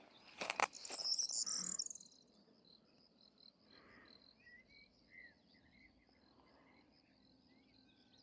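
Crickets trilling steadily in a high, pulsing chorus, with a few faint bird chirps in the middle. A sharp knock like a footstep comes about half a second in, followed by about a second of louder, rapid high chirping.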